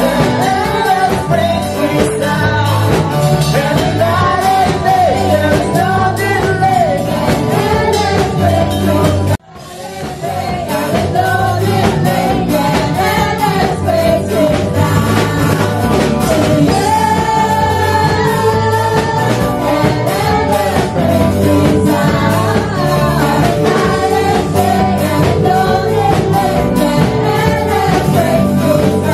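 Live worship band playing a rock-style praise song, with a lead voice singing over guitars and drums. The sound cuts out abruptly about nine seconds in and swells straight back.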